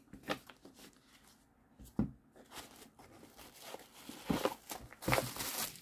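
Japanese Pokémon trading cards being handled: a stack flicked through card by card, with soft scattered clicks and rustles, and a louder rustle of cards near the end.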